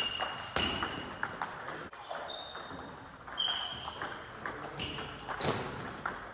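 Table tennis ball striking the table and bats: a series of sharp clicks and short high pings, spaced irregularly about a second apart.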